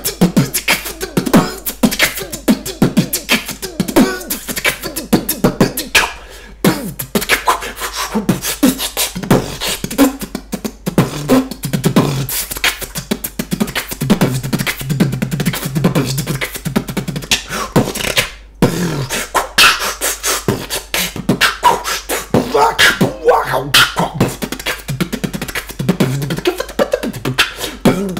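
Solo beatboxing: one man's mouth-made drum sounds, sharp clicks, snares and kicks in a fast continuous rhythm, mixed with hummed, pitched vocal tones. The rhythm breaks off briefly twice, about a quarter of the way in and again about two-thirds of the way through.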